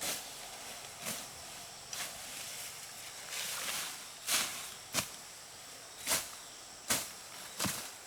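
Sharp chopping strikes about once a second, a blade cutting brush or bamboo by hand, with a rustle of leaves and stems a little past the middle.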